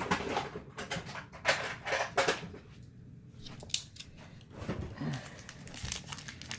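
Irregular scraping and crinkling of a sealed foil trading-card pack being cut open with a knife, in short scratchy strokes with a pause in the middle.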